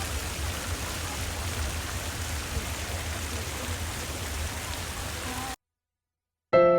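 Garden fountain splashing: a steady wash of falling water that cuts off abruptly about five and a half seconds in.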